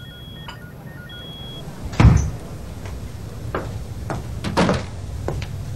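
A door closing with a single heavy thud about two seconds in, followed by a few lighter knocks and taps.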